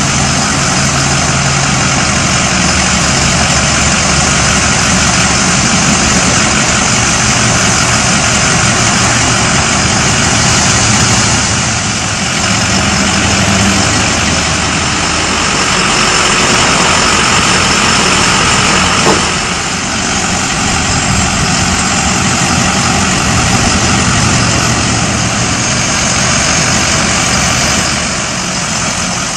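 Heavy utility truck engine running steadily at idle, loud and even, with one short click about two-thirds of the way through.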